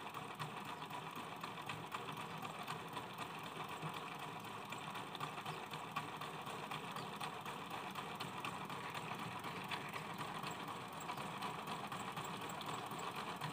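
Faint, steady mechanical rattle of rapid small clicks.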